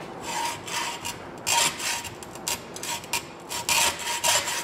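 Hacksaw cutting through braided AN hose wrapped in tape and clamped in a vise, in a run of rasping back-and-forth strokes. The strokes start soft and grow louder after about a second and a half.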